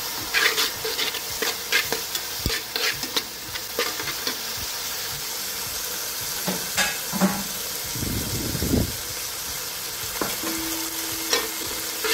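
Chopped vegetables sizzling in hot oil with chili and soy sauce, stirred and scraped around a wide metal pan with a steel spatula and tongs, the metal clicking against the pan. The clicks come thickest in the first few seconds, with a short louder stretch of stirring a little past the middle.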